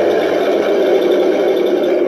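Recorded tank engine sound from a Heng Long RX18 2.4 GHz sound board, played loud through the 1:16 RC T-90 tank's small speaker and running steadily.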